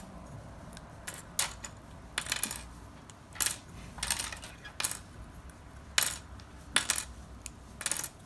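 Plastic Strandbeest kit parts being twisted off their sprue strips one by one: about a dozen sharp, irregular clicks and snaps, some with a short clatter of small pieces.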